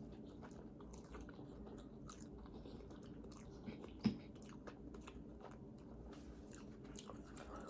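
Faint close-up eating sounds: a person chewing a mouthful of jajangmyeon black bean noodles, with small wet mouth clicks and one short louder sound about four seconds in.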